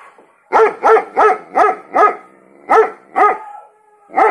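Dog barking in quick runs: five barks about a third of a second apart, a short pause, then two more, and another right at the end.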